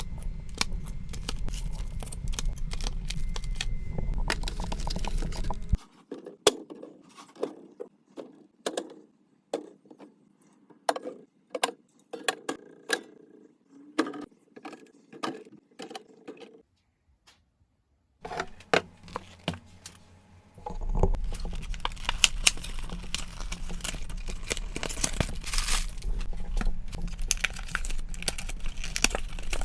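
Food containers and packaging handled during a fridge and pantry restock: items clinking and tapping as they are set down, with packets crinkling and tearing. The handling is sparse in the middle, stops for a moment, then turns busy again over a low steady hum.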